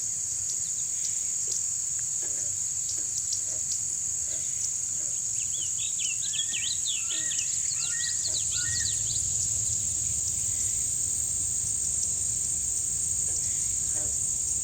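Night chorus of insects and frogs: a steady, high-pitched insect drone with short, low frog calls scattered throughout, and a flurry of quick bird-like chirps from about five to nine seconds in.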